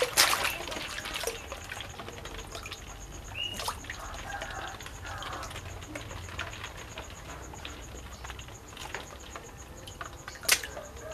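Water sloshing and splashing in a shallow inflatable pool full of plastic balls as a toddler dunks and moves a wet stuffed teddy bear. There is a sharp splash right at the start and another sharp sound near the end.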